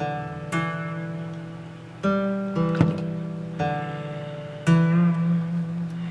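Background music: acoustic guitar picking chords, each struck and left to ring out, a new chord every half second to a second.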